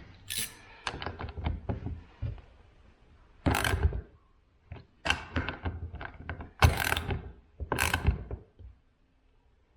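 Clicks and ratcheting clatter of a battery chainsaw's bar and chain being tightened and handled by hand: a quick run of small clicks, then four louder scraping clunks about a second apart.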